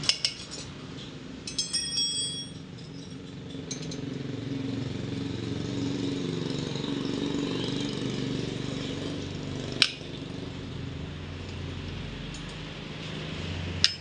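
Metal wire spokes of a motorcycle wheel clinking against each other as the wheel is handled, a quick cluster of clinks with a short ringing in the first couple of seconds, then two single sharp clicks later on. A steady low hum runs underneath from a few seconds in.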